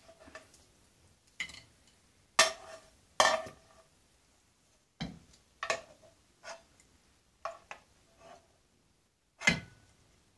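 Metal slotted skimmer clinking and scraping against a frying pan and a plate as peels and a cinnamon stick are lifted out of the oil: an irregular series of separate clinks and taps, the loudest near the end.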